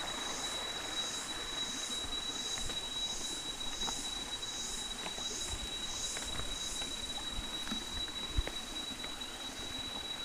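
Insects calling: a steady high whine, with a higher buzzing chorus that pulses about twice a second and stops about two-thirds of the way through.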